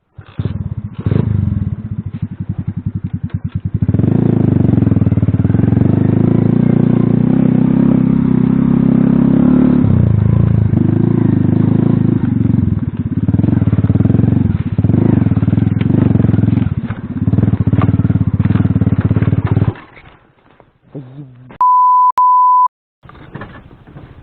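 Alpha moped engine running under load while riding, its pitch and loudness rising and falling for about twenty seconds before it drops away. Near the end a steady beep tone sounds for about a second.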